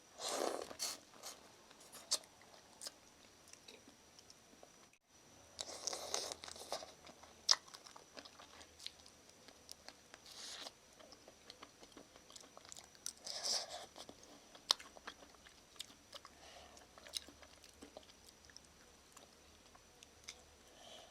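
Close-miked eating of Shin Ramyun noodle soup with shrimp and egg: chewing and biting with many small wet clicks, and four louder rushes about half a second to a second long.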